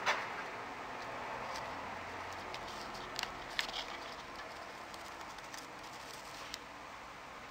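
Soldering work on a laptop DC power jack, as the two black negative wires are soldered onto it: a few scattered faint clicks and crackles from the iron and wires against the jack, over a steady hiss.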